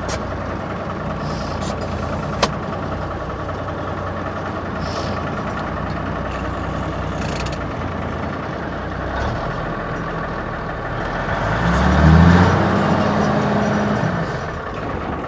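Heavy tow truck's diesel engine idling steadily, with a sharp click a couple of seconds in. About 11 seconds in the engine revs up, louder for a few seconds, then settles back to idle.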